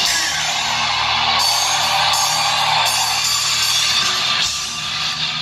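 Hard-rock band playing live at full volume, electric guitar to the fore over drums, picked up loud by a phone in the crowd.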